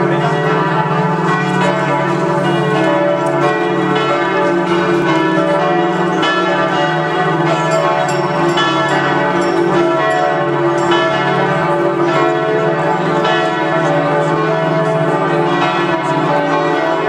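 Several church bells ringing together in a continuous peal, strikes overlapping while their tones ring on between them.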